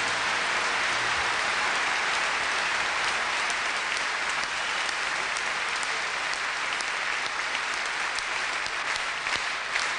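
Audience applauding, with the last low note of the music dying away about a second in; toward the end the applause thins and separate claps stand out.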